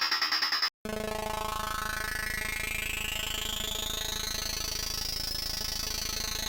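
Rhythmic electronic music cuts off after a brief gap, and a synthesized sound effect takes over: a steady rumbling noise with tones that sweep upward in pitch over several seconds, one tone falling against them.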